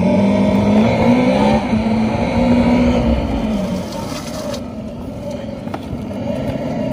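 Segway Ninebot GoKart Pro's built-in speaker playing a simulated engine sound that follows the throttle as the kart accelerates. The sound holds a steady pitch, then drops away about three and a half seconds in.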